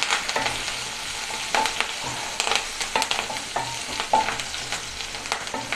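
Chopped onions and curry leaves sizzling in hot ghee in a non-stick kadai, stirred with a wooden spatula that scrapes and knocks irregularly against the pan. They are being sautéed until they turn transparent.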